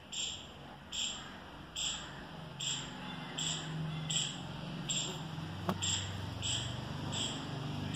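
A bird chirping over and over, one short high chirp a little under once a second, above a faint low hum. A single sharp click sounds a little past the middle.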